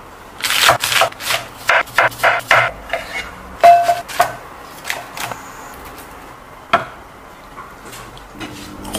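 Salad being made in a glass bowl: a quick run of taps, clatters and knocks as ingredients and utensils hit the bowl, with one short ring about three and a half seconds in, then fewer, lighter knocks.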